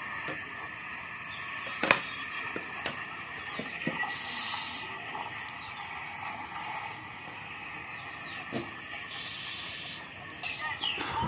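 Outdoor nature ambience: short high chirps repeat about twice a second over a steady background of insects or birds, with bursts of high hissing buzz lasting about a second each, and a few sharp clicks.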